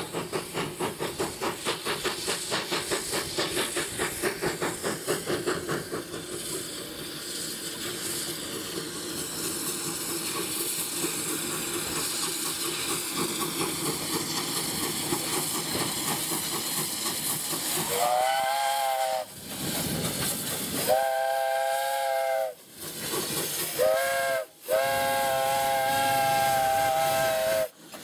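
Flagg Coal Co. #75 steam locomotive working toward the listener. Its exhaust beats come fast, about four a second, then give way to a steady steam hiss. In the last third the steam whistle blows two long blasts, a short one and a final long one: the standard grade-crossing signal.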